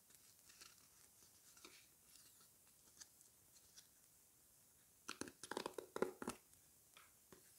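A sticker packet handled with faint crinkles, then torn open by hand in a burst of crackling tearing about five seconds in.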